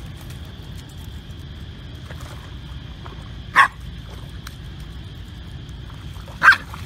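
Pembroke Welsh corgi barking twice, two short sharp barks about three seconds apart, warning another dog away.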